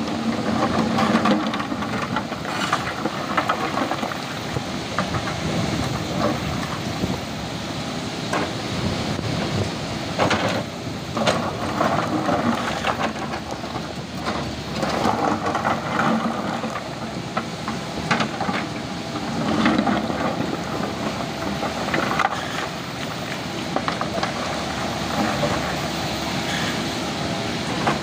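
JCB JS140 tracked excavator's diesel engine running under load as the steel bucket digs into and lifts broken stone, with rocks repeatedly clattering and knocking against each other and the bucket.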